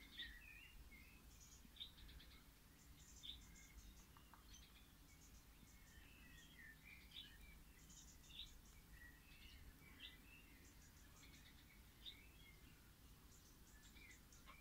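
Small birds chirping faintly: short high tweets and chirps, scattered irregularly, one every second or so.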